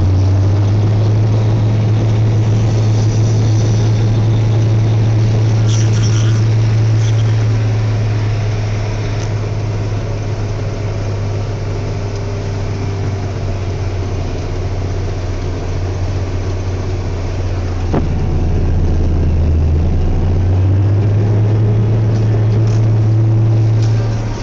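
Caterpillar Challenger MT875 tracked tractor's diesel engine running under load as it pulls a scraper, heard from inside the cab as a steady deep drone. The drone drops lower and quieter for several seconds midway, then climbs back up near the end.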